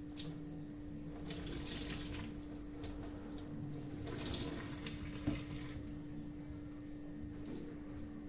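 Kitchen faucet running into a stainless steel sink as a cloth is rinsed and wrung under the stream, the splashing coming in surges; one sharp knock a little after five seconds in, and the water stops about six seconds in.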